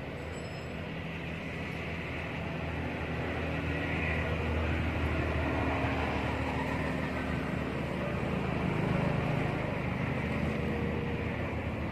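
Steady low rumble of a motor vehicle's engine running, growing a little louder through the middle.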